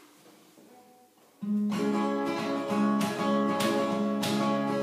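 Acoustic guitar strummed: after a quiet moment, chords start suddenly about a second and a half in and carry on in a steady strumming rhythm, the opening of a song.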